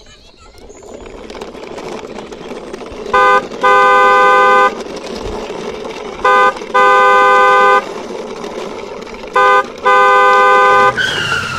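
Horn honking in a short-then-long pattern, 'beep, beeeep', three times about three seconds apart, over a steady rolling noise that builds through the first few seconds.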